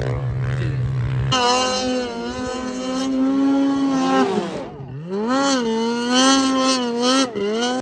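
A snow bike's engine runs at a steady pitch, then after about a second a snowmobile engine takes over at high revs as it churns through deep powder. Near the five-second mark the revs drop briefly, then surge up and down.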